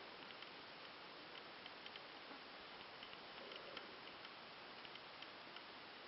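Near silence: a faint steady hiss with scattered, irregular faint ticks.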